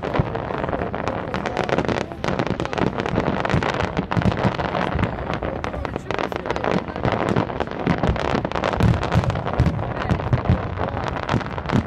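Aerial fireworks display: a dense, unbroken barrage of bangs and crackling from shells bursting overhead.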